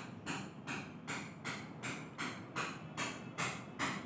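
A spoon beating thick besan (gram-flour) pakora batter in a steel bowl, in steady strokes about three times a second.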